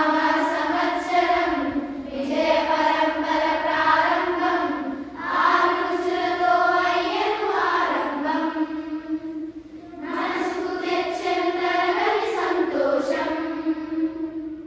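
A group of schoolchildren chanting a shloka in unison, in four phrases with short breaks between them, ending on a long held note.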